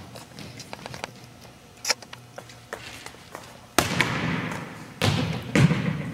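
A volleyball being struck and bouncing: one faint knock about two seconds in, then three loud thuds from about four seconds on, each echoing around a large gym.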